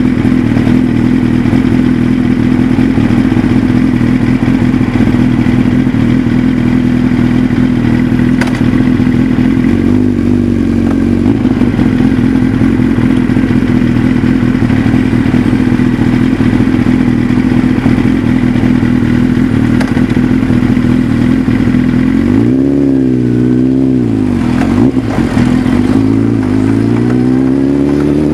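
Motorcycle engine running while riding, heard close up from a camera mounted on the bike. Steady for most of the time, then over the last few seconds the engine note swings down and up and climbs as the bike speeds up.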